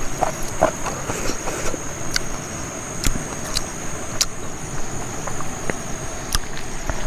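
A person chewing a mouthful of rice and curry eaten by hand, with scattered wet mouth clicks and smacks, over a steady high-pitched drone of insects.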